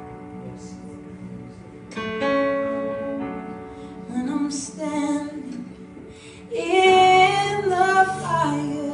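Slow worship song: a woman singing long held phrases over guitar, the loudest phrase coming about two-thirds through.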